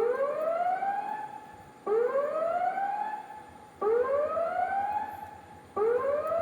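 Tsunami warning siren sounding on test: a rising tone that sweeps upward over about two seconds, fades slightly, then cuts back abruptly and starts again, four times.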